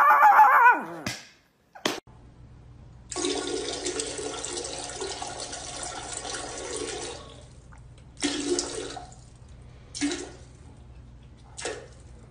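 A chihuahua's howl, rising and falling in pitch, fades out about a second in. After a short gap a toilet flushes with a steady rushing of water for about four seconds, followed by a few shorter bursts of similar rushing.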